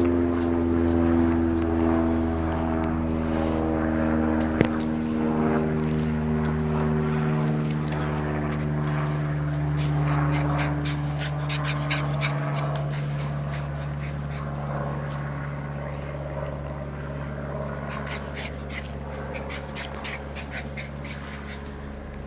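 Finnish Lapphund dogs playing on a lawn, with a dog whimpering, over a steady engine drone that slowly falls in pitch and fades away. A single sharp click comes about four and a half seconds in.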